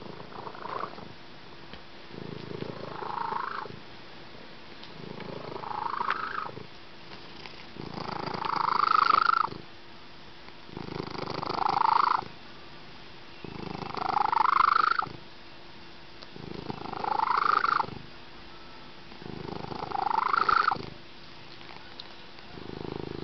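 Noisy, rhythmic breathing close to the microphone. About every three seconds comes a rasping sound that rises in pitch and grows louder, then stops abruptly, with a quieter stretch between.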